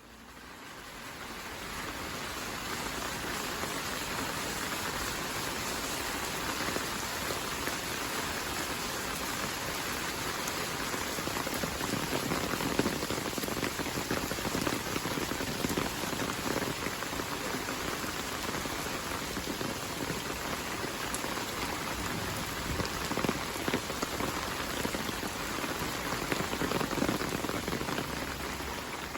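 Heavy rain falling: a dense, steady hiss with many separate drop hits on surfaces, fading in over the first couple of seconds and fading out at the end.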